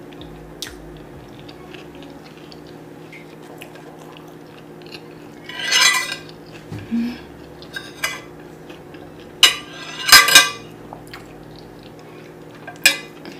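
Metal cutlery clinking and scraping against a plate in a handful of separate strikes, loudest as a double clatter about ten seconds in, over a steady low hum.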